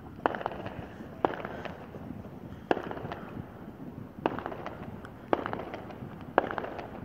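Aerial fireworks bursting: six sharp bangs, one every one to one and a half seconds, each trailed by a short crackle.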